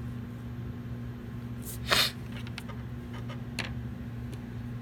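A woman with a head cold sneezing once, a short sharp burst about two seconds in, over a steady low hum.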